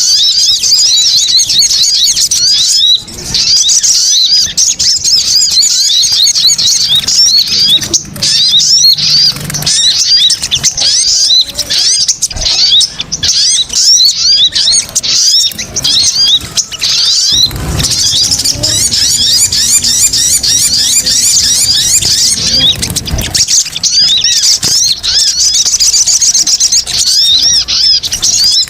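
Sogon (sogok ontong) sunbirds chattering: dense runs of quick, shrill chirps crowding one on another, broken by a few brief pauses. It is a lure call for trapping sogon.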